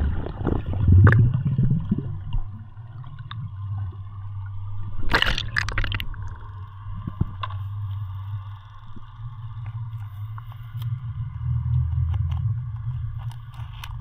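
Underwater sound picked up by a submerged camera: a steady low, muffled rumble with gurgling water and scattered faint clicks. A brief loud rush of water noise comes about five seconds in.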